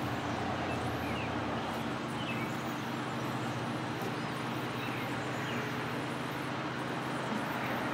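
Steady low mechanical hum with a few faint bird chirps scattered through it.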